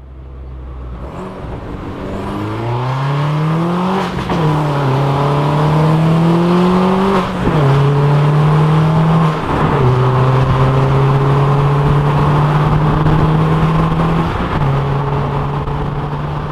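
Mini Cooper JCW R56's turbocharged 1.6-litre four-cylinder, heard from inside the cabin, accelerating hard through two upshifts: the pitch climbs, then drops with a short crack at each change about four and seven seconds in. After another drop in pitch near ten seconds it cruises at a steady lower pitch. It runs a decatted, non-resonated exhaust.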